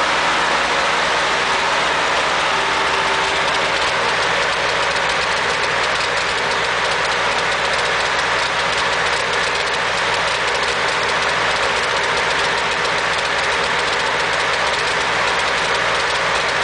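Ford 8N tractor's four-cylinder flathead engine running steadily at idle with an engine skip, a misfire that the owner cannot yet pin on the carburettor or the distributor.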